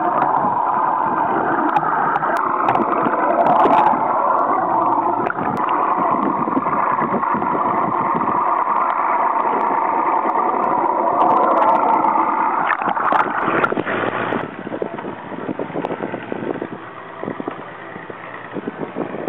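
Boat's twin outboard motors running, heard underwater through a camera towed on the fishing line. About fourteen seconds in, the sound drops to a quieter engine noise.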